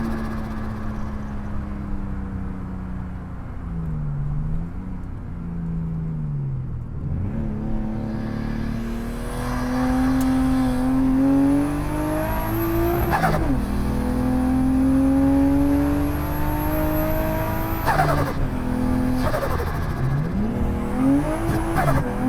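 Straight-piped turbocharged RB20 inline-six engine in a Nissan S13 being driven hard: the revs ease off for a few seconds, then climb steadily through the gears. The pitch drops sharply at shifts about 13 and 18 seconds in, with short crackles at each shift, then climbs quickly again near the end.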